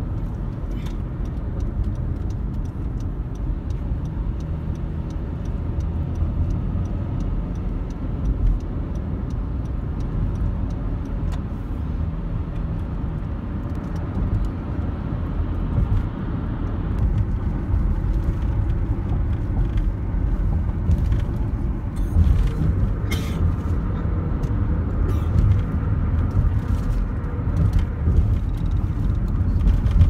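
Steady low rumble of tyre and engine noise inside a car's cabin at expressway speed. In the second half, scattered light clicks and knocks sit over the rumble.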